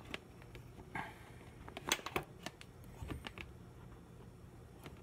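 Handling noise from a phone and its small tripod being adjusted close to the microphone: scattered clicks, knocks and rubbing, the sharpest pair of knocks about two seconds in.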